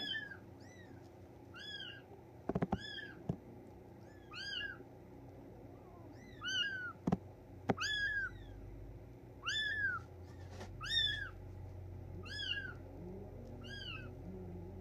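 Three-week-old Bengal kitten mewing over and over: short, high-pitched cries that rise and fall, about one a second. A few brief knocks come in between.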